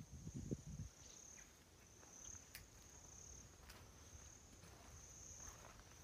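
Faint, steady high-pitched trill of an insect in the bush, with a few soft low thuds in the first second.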